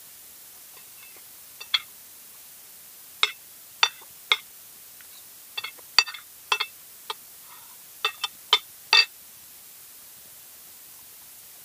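Metal fork and spoon clinking and scraping against a dinner plate while eating: about a dozen short, sharp clinks in irregular groups, the loudest about six seconds in.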